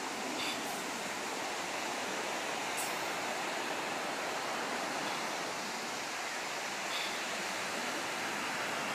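Ocean surf making a steady, even rush.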